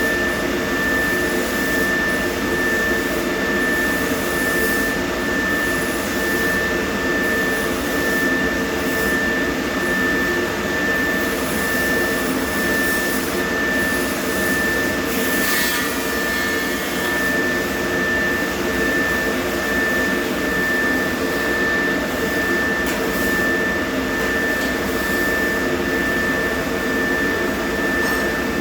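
A steady machine running without a break, a constant noise with a thin high-pitched whine held on one pitch. A brief hiss rises over it about fifteen seconds in.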